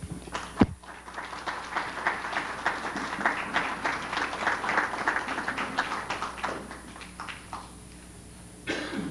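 Audience applauding, building up and then dying away after about seven seconds, with a single sharp thump about half a second in.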